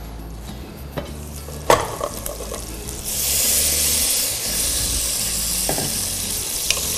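Meat frying in hot oil in a pan: two sharp utensil clicks, then a loud sizzle that jumps up about three seconds in and keeps going.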